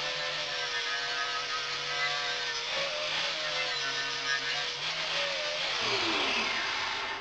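An electric power tool's motor running at high speed with a whine and a hiss, then spinning down with a falling whine about six seconds in.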